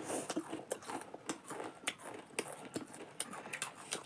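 People chewing and crunching jhaalmuri, spiced puffed rice, with many small crisp crackles at an uneven rhythm.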